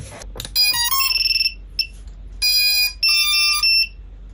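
iFlight Chimera 7 Pro V2 FPV quadcopter powering up as its battery is plugged in: a click, then the electronic speed controllers play their startup beeps through the brushless motors, a short melody of stepped beeps about half a second in and two more bursts around two and a half and three seconds in.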